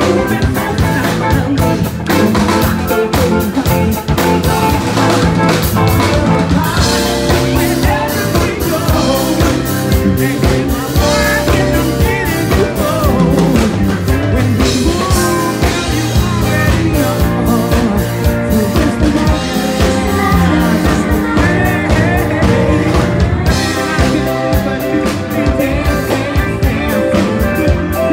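A live rock band playing with a drum kit and a steady, driving beat, pitched guitar or vocal lines wavering over it.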